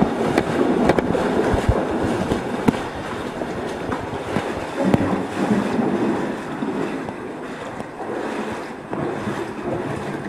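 Cavers moving through a wet, narrow cave passage: footsteps and sloshing water, with scattered knocks and clicks of gear against rock.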